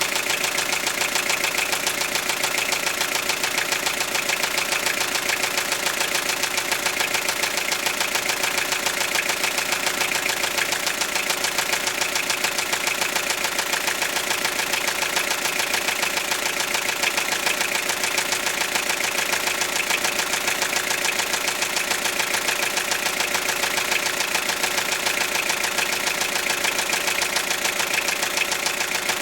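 Toyota 3C-TE 2.2-litre four-cylinder turbodiesel idling steadily, with a rapid, even knocking running in time with the engine: a knock in the engine.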